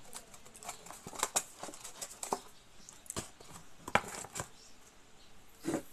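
Eating sounds: scattered clicks and smacks of chewing close to the microphone, with a few sharper knocks, the loudest about four seconds in.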